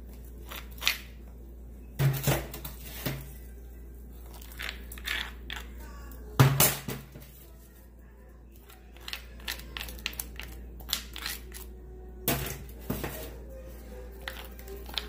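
Metal spoon scraping roasted beef marrow out of the bone into a stone molcajete: an irregular run of sharp knocks and scrapes of metal on bone and stone, the loudest about six seconds in, with lighter clicks near the end.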